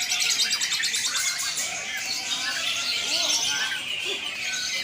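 Several cucak ijo (green leafbirds) singing over one another in a contest-style chorus: quick chirps, whistled glides and a rapid trill in the first second, with faint human voices beneath.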